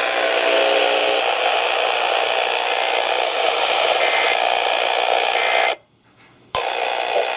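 Loud radio static hiss from a weak, long-distance radio reception, with faint steady tones buried in it. About six seconds in the hiss cuts out to near silence for under a second, then comes back with a sharp click.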